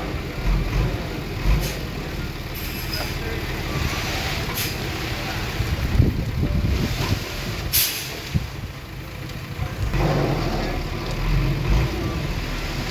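Heavy diesel earthmoving machinery running with a steady low rumble, broken by three short hisses, the loudest about two thirds of the way through.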